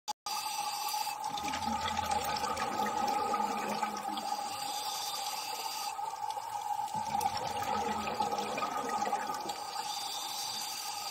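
Underwater ambience recorded by a diving camera: a steady watery rush with a constant mid-pitched hum, starting abruptly just after a short click.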